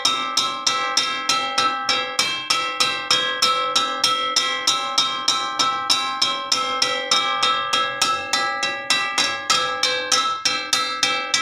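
A metal wok struck again and again in an even rhythm, about three or four blows a second. Each blow rings on with a bell-like metallic tone.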